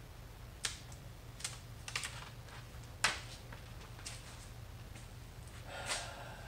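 Irregular sharp clicks and crackles of a plastic paint stencil and masking being peeled off and handled, with a short crinkling rustle near the end.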